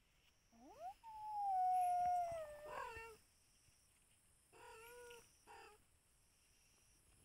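A cat meowing: a short rising call, then one long, loud meow that falls slightly in pitch, and about four and a half seconds in a shorter meow followed by a brief one.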